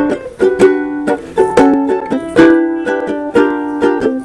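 Intro music: a plucked-string instrument strumming chords, about two or three strums a second.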